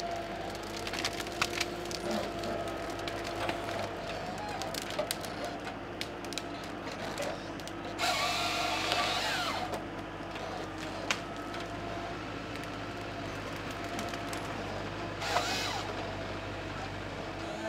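Malwa 560H forest harvester working: its engine and hydraulics run steadily with a held whine while branches crack and snap around the Log Max 928 head. About eight seconds in comes a louder burst of about two seconds as the head's saw cuts through a stem, with a shorter burst near the end.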